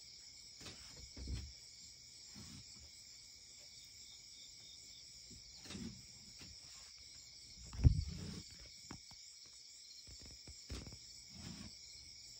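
Steady night chorus of crickets chirring, broken by a few dull low thumps, the loudest about eight seconds in.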